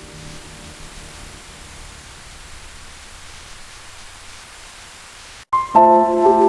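Steady hiss of rain ambience, with the last tones of earlier music fading out at the start. About five and a half seconds in, the sound cuts out for an instant and music with sustained bell-like notes begins.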